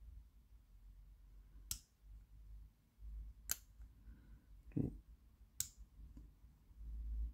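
Zarka J45S disc-detainer padlock being picked with a disc-detainer pick: three sharp clicks about two seconds apart, the clicky feedback of the lock's discs as the pick turns them, with a duller knock between the second and third.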